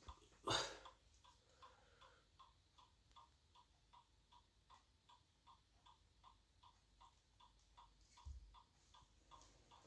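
An iPod in DFU mode beeping from its internal beeper: faint, short, evenly spaced beeps, a little under three a second, much like a microwave's beep. A brief scuffing noise comes about half a second in and a soft thump near the end.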